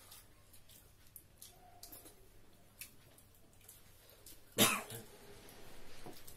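A person coughs once, a short loud burst about two-thirds of the way in. Faint clicks and rustles of people eating with their fingers from plates run under it.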